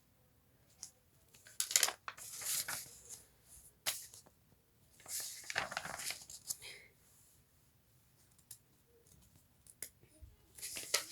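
Pages of a picture book being turned and handled: several short papery rustles with a few light clicks.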